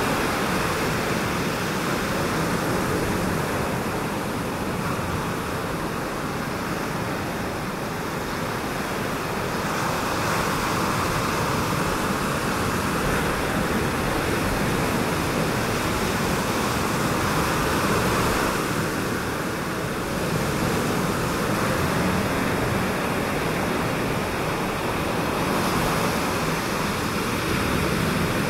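Ocean surf washing over a shallow reef: a steady rush that swells and eases every several seconds.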